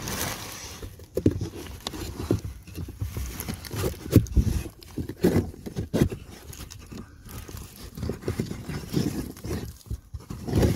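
A new pleated cabin pollen filter being slid and pushed into its housing by hand: irregular scraping and rubbing with a run of dull knocks, the loudest a little past four seconds in and another near the end.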